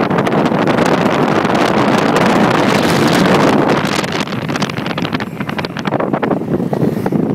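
Wind rushing and buffeting the microphone at the open side window of a moving vehicle, over road and engine noise. The rush eases a little about four seconds in.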